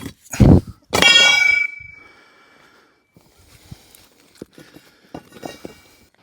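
Breaking out an old concrete driveway patch: a heavy thud, then a steel tool strikes with a sharp, ringing clang that dies away over about a second, followed by faint taps and scrapes of loose concrete.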